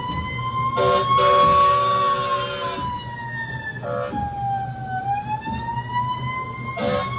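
Siren sound effect from a coin-operated fire truck kiddie ride: a slow electronic wail rising and falling in pitch, one cycle every few seconds, over a low steady hum. A louder, harsher blast-like sound cuts in from about one to three seconds in, briefly near four seconds, and again near the end.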